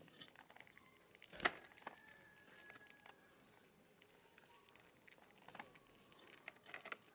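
Budgies scratching and shuffling, with scattered small clicks and one sharp tap about a second and a half in. A faint thin held tone runs from about two to three seconds in.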